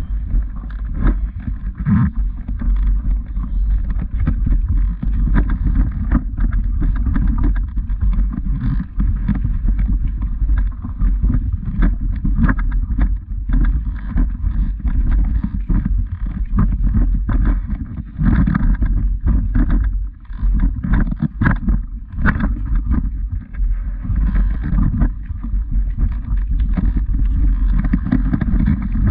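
Muffled low rumble of wind and handling noise on a walking camera's microphone, broken by irregular thuds from footsteps on a stony path.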